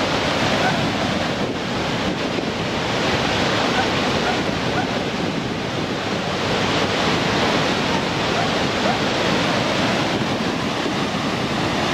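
Waterfall and river rapids rushing over rocks: a steady, unbroken noise of falling and tumbling water.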